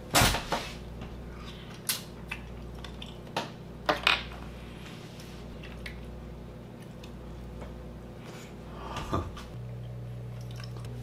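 Empty mussel and clam shells and chopsticks clicking against a ceramic bowl as the shellfish is eaten: a few scattered sharp clinks, the loudest at the start, over a steady low hum.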